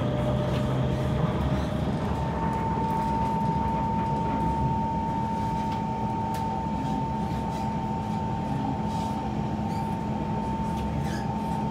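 Kawasaki C151 MRT train running between stations: a steady rumble of wheels and motors. About two seconds in, a steady whine from the traction equipment sets in and holds.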